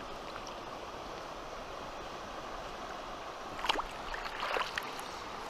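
River water running steadily, with a few sharp splashes about three and a half to four and a half seconds in as a small brown trout is let go from the landing net into the stream.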